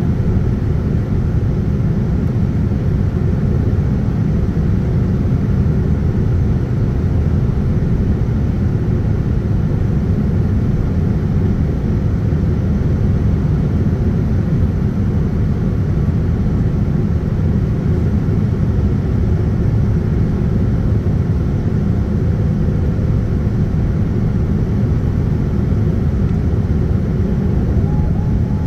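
Boeing 787-10 cabin noise heard from a window seat on approach: a steady, even rumble of the jet engines and airflow, without change.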